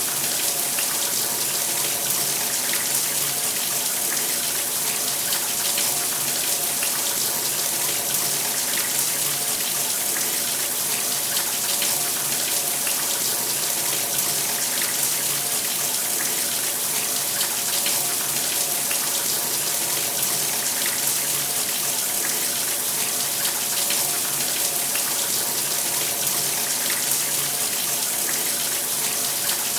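Shower running steadily, the spray pattering on a surface in an even hiss.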